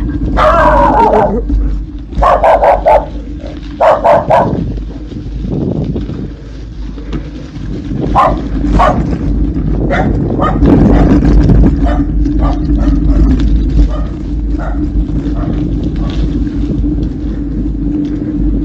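An animal calling in a series of loud pitched cries, three in the first four seconds and shorter, fainter ones later, over a steady low rumble of wind on the microphone.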